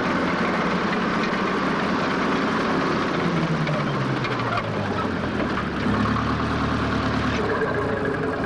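A bulldozer's heavy diesel engine running, its note rising and falling as it works, and changing a little before the end.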